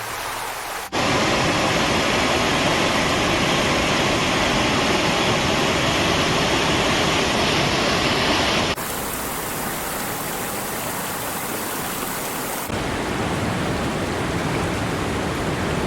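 Fast-flowing floodwater rushing, a steady noise that cuts in suddenly about a second in. It changes abruptly twice more as the footage switches, and is loudest in the first stretch.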